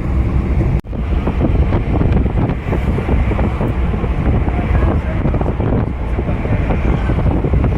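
Wind buffeting the microphone over the rumble of a moving vehicle in road traffic, with a brief dropout about a second in.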